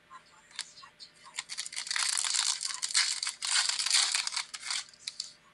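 Plastic-foil wrapper of a Chronicles football card pack crinkling and crackling densely in the hands as it is torn open, for about three and a half seconds, after a few light ticks.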